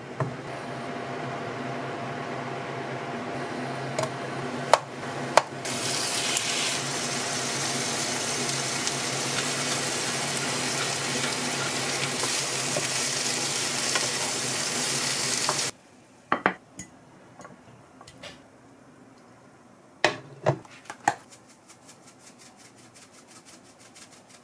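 Butter and shrimp sizzling in a frying pan, with a couple of sharp utensil knocks against the pan; the sizzle cuts off suddenly about sixteen seconds in. A few clinks follow, then the quick clicking of a spice grinder near the end.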